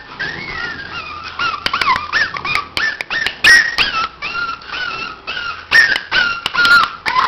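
Several puppies whining and whimpering together: high-pitched cries that rise and fall, often overlapping, with sharp clicks among them.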